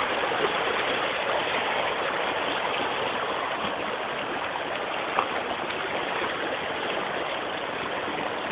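Shallow water running over white travertine terraces: a steady rushing and trickling of flowing water.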